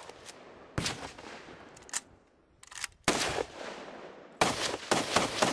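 Gunfire: single shots a second or more apart, each with an echoing tail, then a quicker string of shots, several a second, starting about four seconds in.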